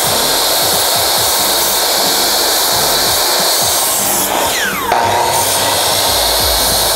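Electric miter saw running and cutting through a wooden board, with a steady whine and rasp. Its pitch drops for a moment about halfway through.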